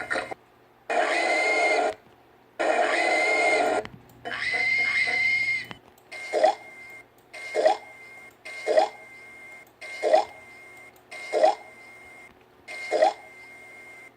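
Cartoon minion pig sound effects, as voiced for the green pigs of Angry Birds. Three longer pig sounds of about a second each come first, then seven short grunts, one about every second and a quarter.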